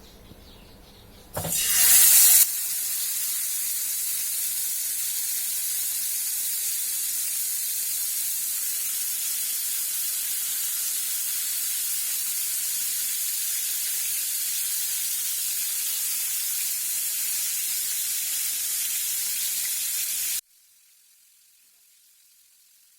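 Spice-marinated fish going into hot oil in a frying pan: a loud burst of sizzling about a second in, then a steady frying sizzle that cuts off abruptly near the end, leaving only a faint hiss.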